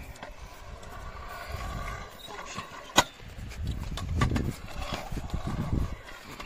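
Skateboard wheels rolling over concrete, the rumble building toward the end, with one sharp board clack about three seconds in as a trick is popped or landed.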